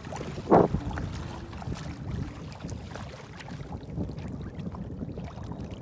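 Wind buffeting the microphone over water sounds around a kayak, a steady low rumble with scattered light knocks and one brief louder sound about half a second in.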